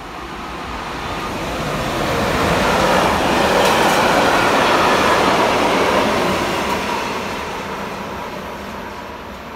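An electric locomotive hauling a train of Speno rail-grinding wagons passes at speed. The rolling noise of the wheels on the rails builds up, peaks about halfway through as the wagons go by, and fades as the train moves away.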